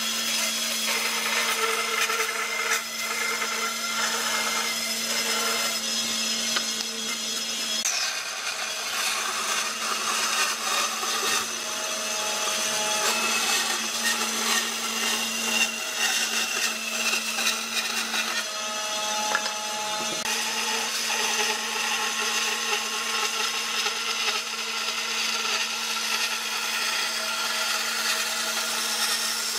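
Bandsaw running and cutting a thick wooden board along a curved line: a steady motor hum under the continuous hiss and rasp of the blade in the wood.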